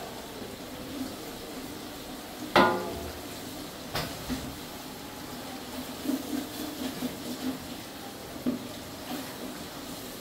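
Sliced onions sizzling in oil in a large aluminium pot while a wooden spatula stirs and scrapes through them. About two and a half seconds in, the spatula knocks hard against the pot and the pot rings briefly; a lighter knock follows about a second later.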